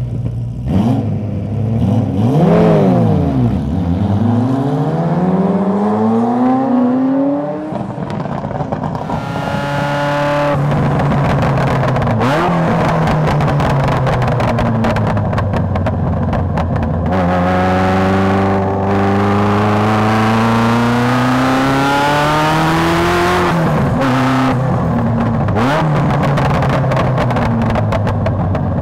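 Ferrari F40's twin-turbo V8 driven hard on track. The revs climb repeatedly and drop back sharply at each gear change, with a quick dip and pick-up about three seconds in.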